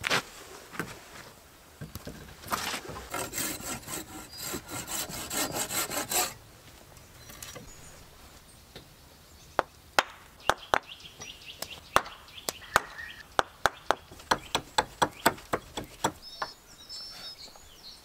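A hand blade working a wooden log. First comes a few seconds of rough rasping strokes, like sawing or shaving. Then a run of sharp knocks, about two to three a second, as the blade chops into the wood.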